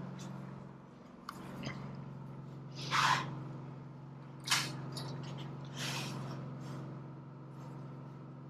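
Portable generator running with a steady low drone, and a few short scraping and rustling noises from aluminum trim stock being handled on a sheet-metal brake, the loudest about three seconds in.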